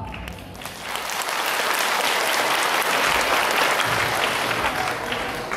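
Audience applauding, the clapping swelling during the first second and then holding steady.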